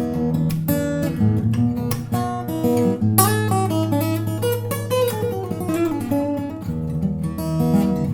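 Bellame W-180 acoustic guitar being played: chords with changing harmony, and in the middle a run of single notes stepping downward over a held low bass note.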